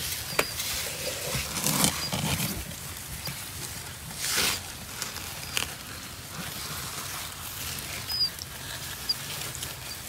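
Scattered scraping and rustling on sandy soil as elongated tortoises shuffle into a burrow, with one louder scuff about four seconds in. A few faint, short high chirps sound near the start and twice near the end.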